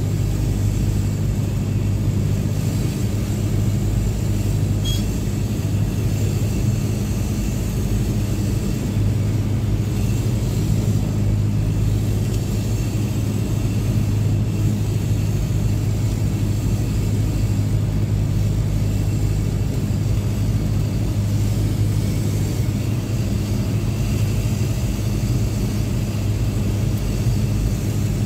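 Cessna 172S's four-cylinder Lycoming engine and propeller running steadily, heard as a constant low drone inside the cockpit, with airflow hiss over the top.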